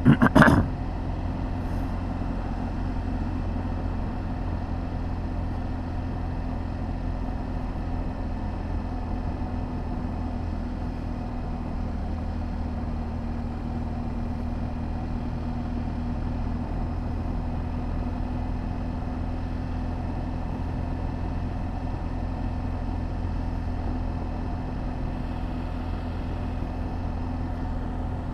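BMW R1200GS Adventure's boxer-twin engine running steadily at a cruise of about 30 mph, a constant low drone. A brief loud rush of noise comes right at the start.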